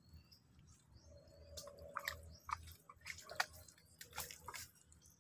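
Faint wet squelches and sharp little clicks of wet mud and water being stirred, scattered irregularly.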